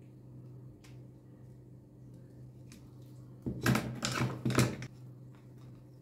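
Wooden-handled silicone spatulas being gathered up and handled: a short clatter of several quick knocks and rattles about three and a half seconds in, over a low steady hum.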